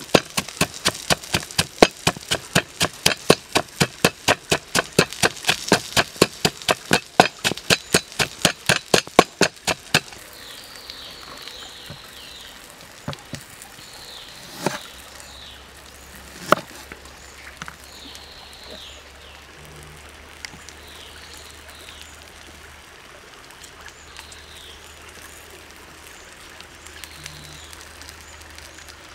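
Wooden pestle pounding fresh chilies, sugar and salt in a wooden mortar, about four quick even strokes a second, stopping about ten seconds in. A few single sharp knocks follow as a lime is cut on a board, while short high falling chirps repeat every second or two.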